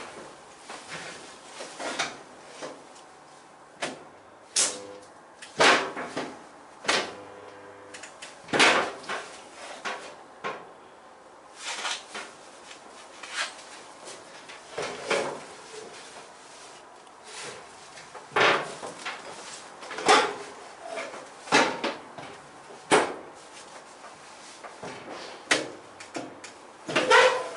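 Resistance spot welder working along steel body panel seams: a series of sharp clunks every second or two as the arms clamp and release. A few times, from about four to eight seconds in, each clunk comes with a short low buzz.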